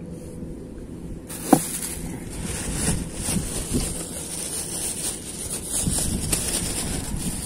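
Close handling noise as a plastic bag is worked and a sleeve brushes over the microphone: a sudden rustle from about a second in, with a sharp knock just after and smaller ticks through the rest.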